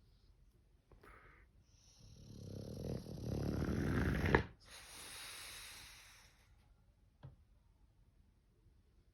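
English bulldog snoring: one long snore that grows louder over about two seconds and cuts off sharply, then a softer, breathy exhale.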